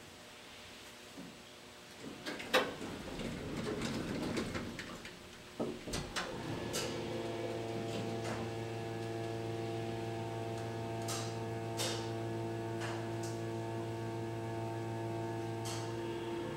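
Elevator doors sliding shut and meeting with a thud about six seconds in, then a steady mechanical hum from the elevator running, with a few faint clicks.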